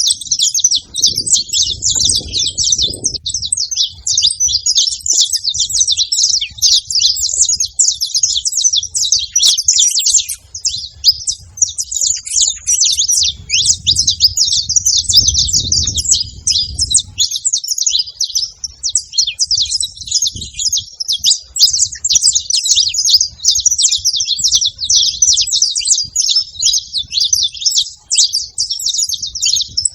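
Saffron finches chirping, many short high calls overlapping without pause, as from a flock.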